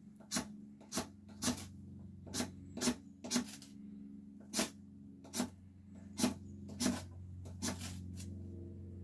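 A Victorinox pocket knife shaving fine curls off a stick of fatwood (Kienspan) for tinder, in short scraping strokes, about one a second and eleven in all.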